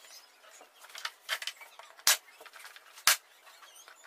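Sharp knocks of 9 mm plywood rack panels being handled and set in place: light clicks and taps about a second in, then two loud knocks about two and three seconds in.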